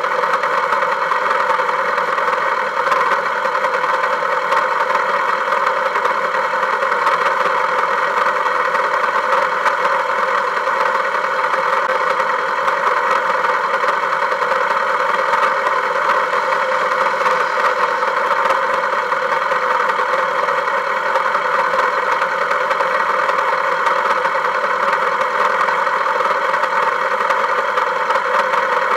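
Engine running steadily, an even droning noise that holds the same speed and pitch throughout, with no revving.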